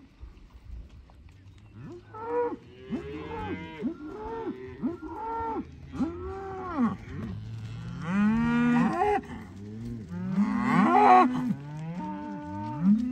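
A herd of black beef cows and calves mooing, many calls overlapping one another. The first couple of seconds are quieter; then the calls come one after another, with the loudest ones near the middle and toward the end.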